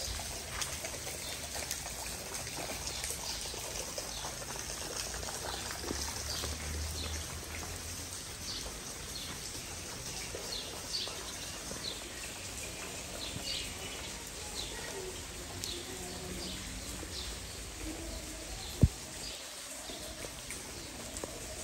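Steady rain falling on a garden, with short high bird chirps repeating through the middle. A single sharp knock about three seconds before the end.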